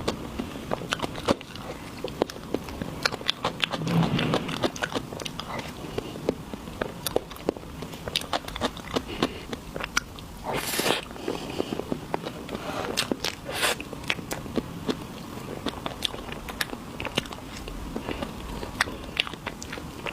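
Close-miked eating of desserts: crunching bites and chewing with many sharp crackly clicks, and two louder crunches about ten and thirteen seconds in.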